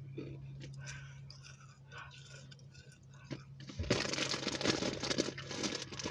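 Crunchy snack being chewed close to the phone's microphone, with small clicks. About four seconds in, a louder stretch of close crackling and crinkling begins. A low steady hum runs underneath.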